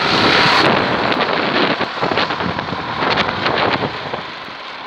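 BMX bike in motion with something taped to its frame flicking against the turning spokes, a fast, dense rattle meant to sound like a motorbike engine. It is loudest at the start and eases off near the end.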